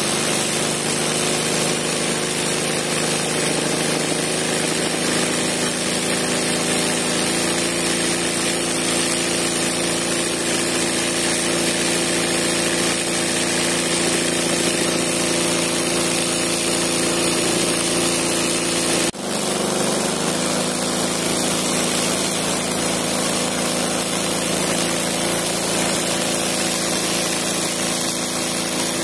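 Embroidery sewing machine stitching at speed: a steady, even motor-and-needle run. About two-thirds of the way through it cuts off for a moment and resumes at a slightly different pitch.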